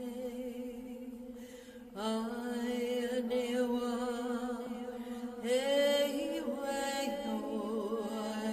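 Layered wordless vocal chanting: long held tones sung over a steady drone, with a new voice coming in about two seconds in and another sliding up in pitch about halfway through.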